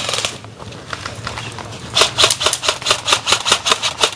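Airsoft rifle firing a rapid string of shots, several a second, starting about two seconds in.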